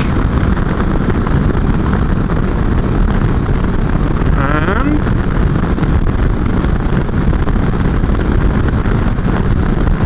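Wind rushing over the microphone over the steady running of a Kawasaki Versys 650's parallel-twin engine at cruising speed on the road.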